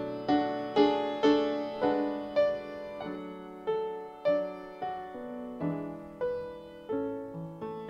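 Piano playing a slow tune, a note or chord struck about every half second and left to fade before the next.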